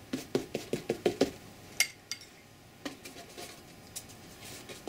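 A bristle paintbrush dabbing tea stain onto a stretched canvas: a quick run of light taps, about six a second for the first second and a half, then a sharper click and a few scattered ticks.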